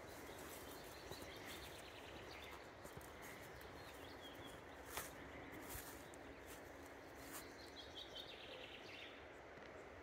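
Faint outdoor ambience: a steady soft hiss with small birds chirping now and then, a few sharp clicks, the loudest about halfway through, and a faint low hum in the second half.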